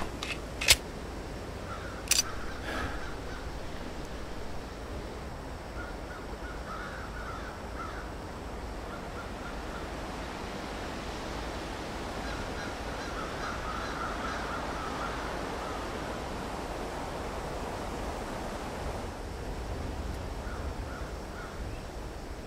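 Outdoor field ambience: a steady background hiss with crows cawing faintly now and then. Two sharp cracks stand out in the first two or so seconds.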